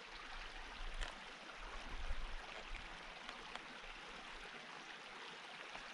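Small rocky stream running over stones, a faint steady babble, with a few light clicks on top.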